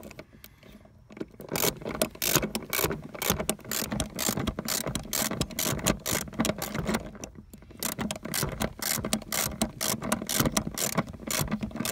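Socket ratchet wrench with a 12 mm socket clicking rapidly as it is swung back and forth to tighten a seat-mounting bolt down. The clicking starts about a second in.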